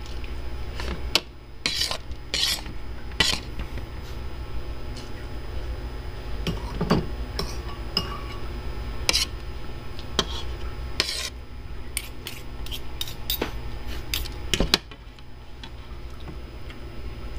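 Metal fork clinking and scraping on a ceramic plate while eating, irregular sharp clicks over a steady low hum.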